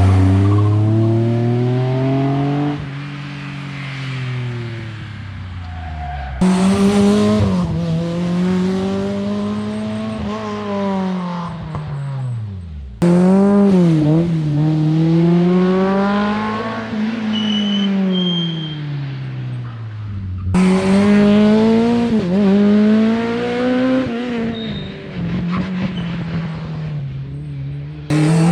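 Rally cars on a special stage in cut-together clips, a new car about every seven seconds: each engine rises and falls in pitch as it revs, shifts and lifts off.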